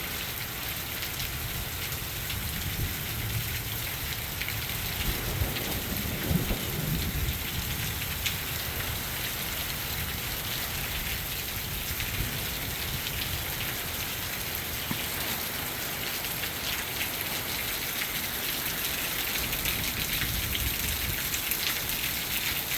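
Heavy hurricane rain pouring down in a steady roar, with gusting wind adding an uneven low rumble that swells and fades.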